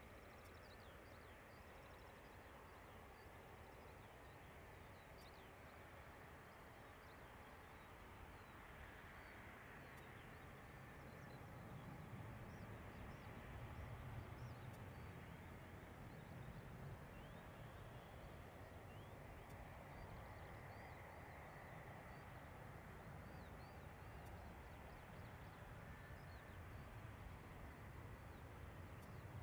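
Faint outdoor ambience: many small birds chirping, over the low rumble of an Airbus A350-900's Rolls-Royce Trent XWB engines at idle as it taxis. The rumble swells a little a bit before the middle and then holds.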